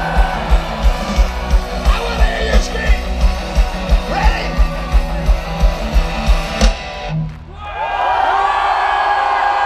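Live rock band playing loud, with guitars and a steady pounding kick drum about three beats a second. The band stops abruptly about seven seconds in, and a large crowd cheers and yells.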